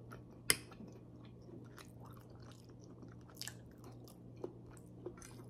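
Faint close-up sounds of someone chewing and eating spaghetti, small wet mouth clicks scattered throughout, with one sharp clink of a metal fork about half a second in.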